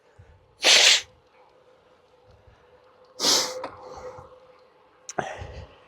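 Three short, sharp breaths from a cyclist close to the microphone, about two seconds apart, with a faint steady hum underneath.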